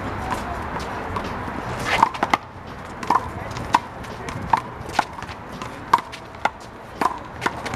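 One-wall handball rally with the big blue ball: a run of sharp smacks as the ball is struck by hand and hits the wall, starting about two seconds in and coming every half second to a second.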